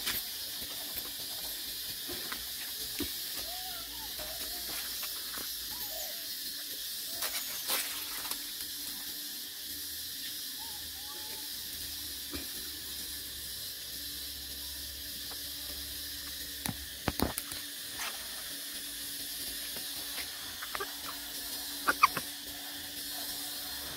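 Steady high hiss of outdoor ambience, with a few faint short squeaks from long-tailed macaques and a handful of sharp clicks or taps; the loudest clicks come a little after the middle and near the end.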